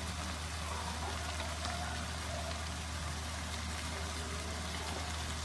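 Onions and tomatoes frying in oil in a wok: a steady, even sizzle, with a low steady hum beneath it.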